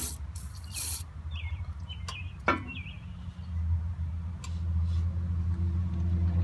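A steady low engine hum, growing a little louder in the second half, with a few sharp clicks and clinks of handled tools or parts: one at the start, another just under a second in and a ringing one about two and a half seconds in.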